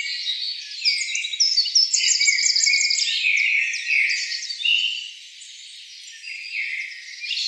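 A chorus of forest birds singing and calling over one another, many short whistled notes sliding down in pitch. About two seconds in, a fast run of roughly ten quick repeated notes stands out, and the chorus thins briefly near the end.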